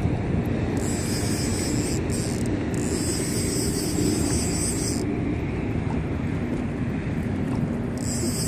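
Wind buffeting the microphone over a steady wash of open water around a small boat. A high hissing buzz comes and goes in spells: about a second in, again from about three to five seconds, and near the end.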